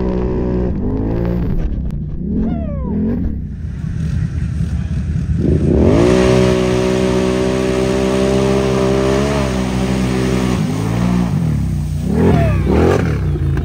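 Can-Am Renegade 1000 ATV's V-twin engine revving up and down, then held at high revs for about four seconds with mud and water spraying off the tyres, dropping back and revving again near the end.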